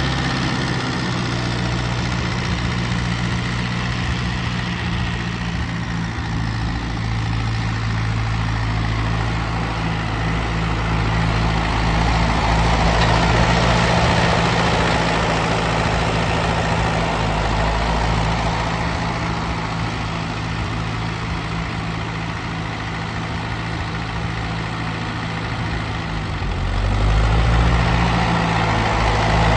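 Ferguson TEF-20 tractor's four-cylinder diesel engine running steadily at low speed while it is driven. It grows louder near the end, with a brief change in engine speed.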